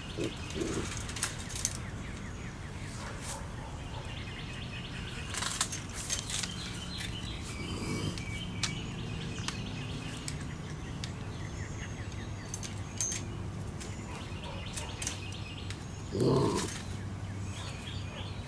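Raccoon moving in a wire-mesh live trap: scattered sharp clicks and rattles of the wire cage, with high chirping calls in places. A short louder burst comes about sixteen seconds in.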